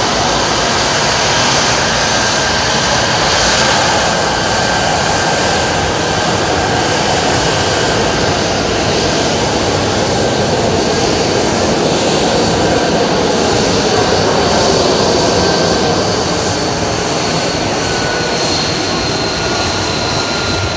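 F-35's Pratt & Whitney F135 jet engine running at taxi power, a loud steady roar with a high whine that drifts slightly lower.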